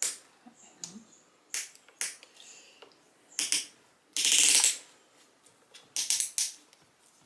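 Handling noises: sharp clicks and taps of small hard objects being moved and set down, often in pairs, with a louder rasping rustle about four seconds in.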